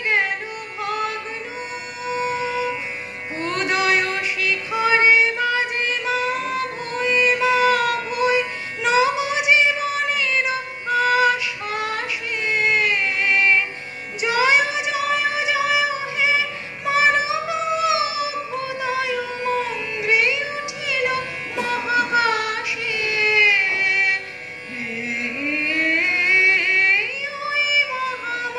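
A woman singing a Bengali song solo into a microphone. She holds long notes that glide and bend in pitch, with short breaks between phrases.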